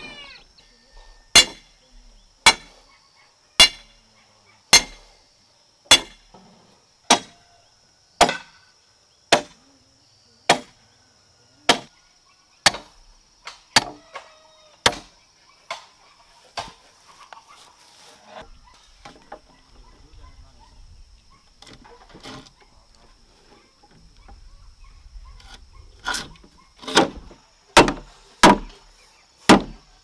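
Small sledgehammer striking the top of a steel rebar stake, driving it down through bamboo poles: sharp metallic blows about once a second, a pause in the middle, then another run of blows near the end.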